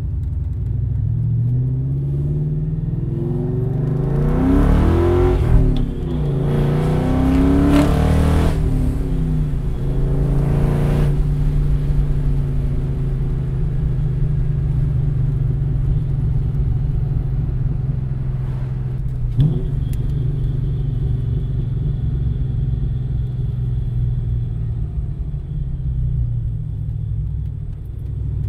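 2004 Ford Mustang GT's 4.6-litre two-valve V8 through a full aftermarket exhaust, heard from inside the cabin. It pulls hard through the gears for the first ten seconds or so, pitch climbing and dropping at each shift, then settles into a steady cruising drone, with one brief sharp click about two-thirds through.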